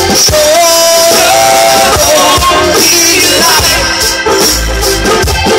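Live rock band playing loud through a PA: electric guitars, bass and drums, with singing.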